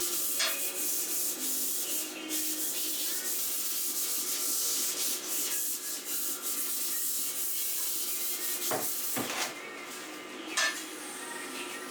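A power tool running with a steady scratchy hiss of abrasion over a faint motor whine, with a couple of short knocks a little before the end.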